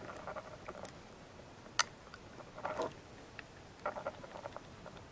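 Faint scattered clicks and scratchy rustles from small handheld test gear being handled: one sharp click a little under two seconds in, then short rustles around three and four seconds.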